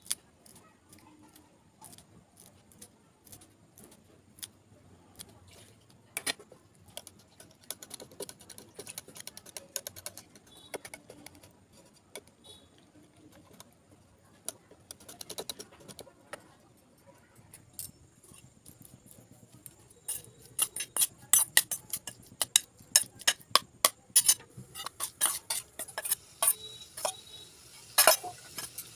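Wire whisk beating an egg mixture in a glass bowl: rapid clinking of the wires against the glass, which grows much faster and louder about two-thirds of the way through. Earlier, scissors snip a green chilli into the bowl with scattered light clicks.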